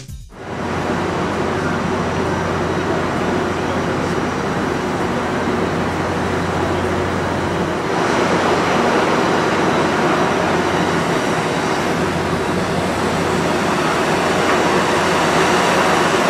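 Steady outdoor background noise: a continuous rumble and hiss with a low hum under it, like distant engines or machinery. It changes slightly about halfway through.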